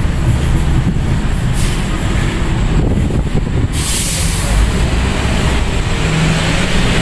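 City street traffic: a steady low rumble of heavy vehicles, with a sudden burst of hiss about four seconds in that dies away over a second or so.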